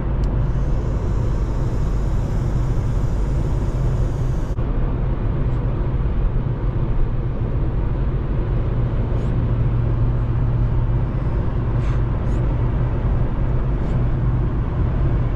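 Cabin sound of an Infiniti G37S's 3.7 L VQ V6 cruising steadily at about 2,300 rpm and 70 mph, a constant engine-and-road drone with wind noise through the open sunroof. A high hiss runs for the first four seconds or so and cuts off suddenly.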